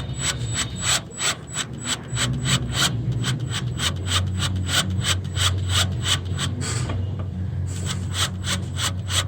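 Power drill turning a left-handed bit in a stuck EGR bolt: a steady motor hum with a regular scraping chatter about five times a second as the bit grabs the bolt. The chatter pauses briefly about seven seconds in.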